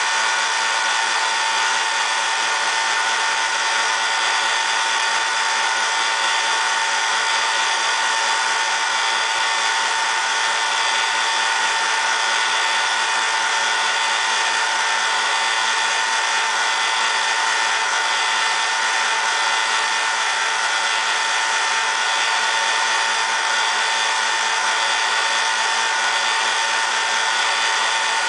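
Electric motor of golf-club ferrule grinding machinery running steadily: a continuous, unchanging whine with a strong steady tone over a hiss.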